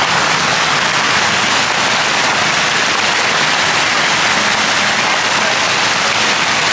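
Plaza fountain jets splashing down into a basin close by: a steady rush of falling water.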